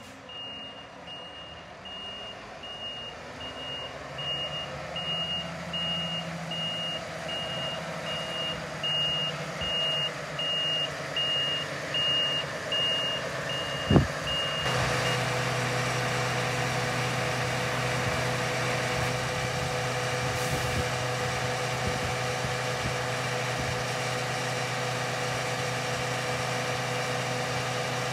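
Scania R520 truck's V8 engine running while it reverses, its reversing alarm giving steady, evenly spaced beeps. About halfway through the beeping stops with a short sharp pop. The engine then holds a steady hum while the hydraulics raise the hooklift arm.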